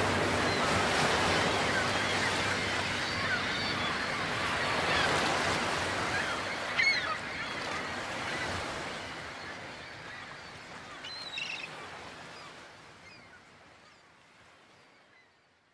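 Ocean surf washing on a shore, with a few short bird calls about seven and eleven seconds in, slowly fading out to silence.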